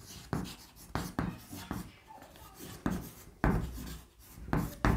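Chalk writing on a blackboard: a run of short, irregular scratching strokes as a word is written.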